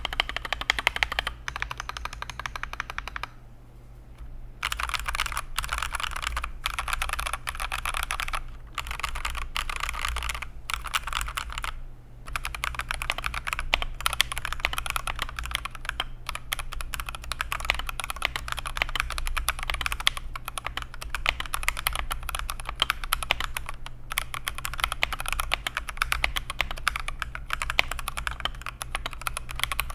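Fast typing on a mechanical keyboard fitted with Akko switches, with dense rapid keystroke clicks. The typing stops for about a second a few seconds in and briefly again midway.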